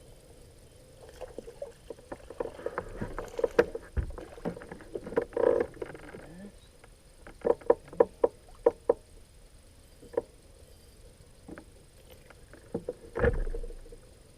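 Irregular knocks and clatter of fishing gear being handled in a boat: scattered clicks, a quick run of sharp knocks in the middle, and a louder thump near the end.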